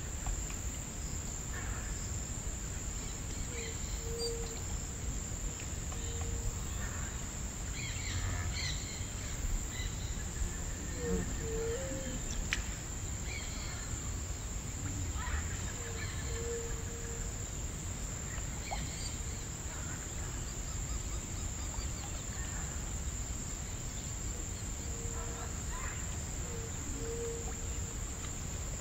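Insect chorus, a steady high even drone, with short low call notes recurring every few seconds and scattered brief bird calls over a low rumble.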